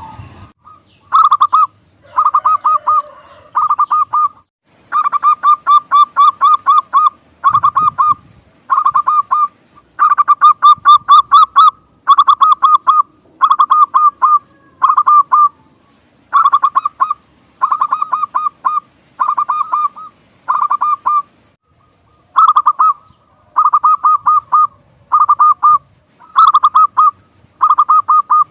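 Zebra dove (perkutut) calling in quick bursts of short staccato cooing notes, each burst about a second long, repeated over and over with brief pauses between.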